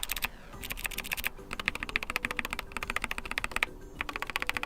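A function key on a Keychron K4 HE keyboard with magnetic Hall-effect linear switches is pressed rapidly over and over, in about five quick bursts with short pauses. The key sounds rough and scratchy, a fault traced to loose plastic shavings lodged under the key.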